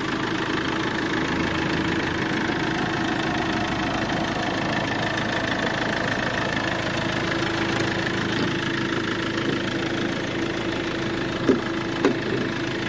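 Fiat Ducato minibus diesel engine idling steadily with the bonnet open, an even hum with a constant low tone. Two light taps sound near the end.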